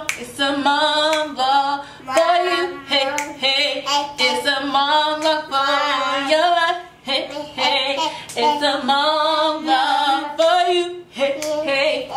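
A woman singing an a cappella intro jingle in phrases of held, wavering notes, with no instruments.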